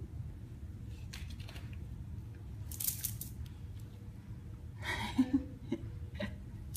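A few short crinkly, rustling noises from a small handheld toy being handled, over a low steady room hum, with a short baby vocal sound about five seconds in.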